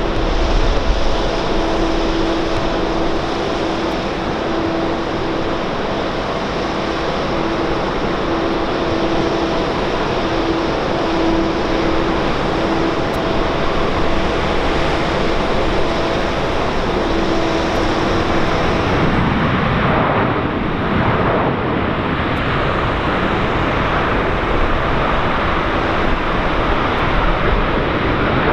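Jet airliner engines running loud and steady, with a steady hum that fades out about eighteen seconds in. About twenty seconds in the sound shifts, the hiss losing its top end.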